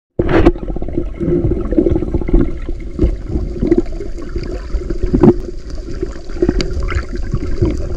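Muffled churning and gurgling of water heard through an underwater camera, with scattered knocks.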